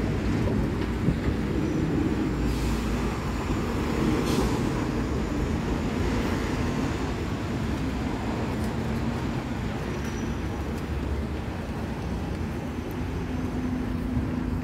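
Junction traffic of diesel buses and cars running and pulling away: a steady low engine rumble, with two short hisses about two and a half and four and a half seconds in.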